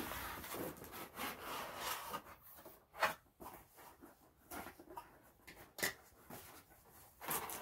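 A cardboard mailer box being handled and opened: a sharp click at the start, then about two seconds of scraping and rubbing on cardboard, followed by scattered short rubs and knocks.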